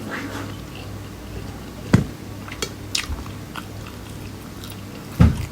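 Close-up eating sounds: a person chewing a mouthful, with a few sharp clicks and taps.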